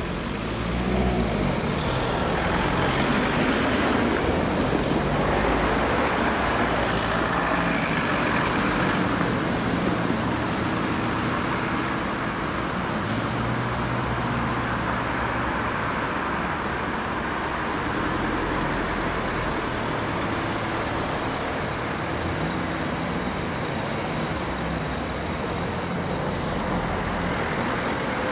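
Road traffic: cars and vans driving past and over the level crossing one after another. Engine and tyre noise swells about a second in and stays loudest for several seconds, then carries on more evenly.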